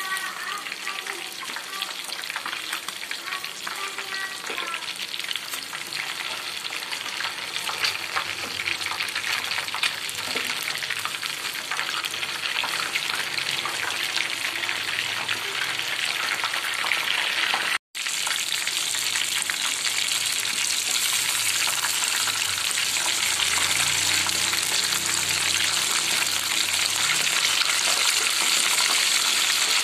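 Pieces of coated fish deep-frying in hot oil in a pan: a dense crackling sizzle throughout, with the occasional scrape of a utensil turning the pieces. The sizzle breaks off for an instant a little past halfway and comes back louder and steadier.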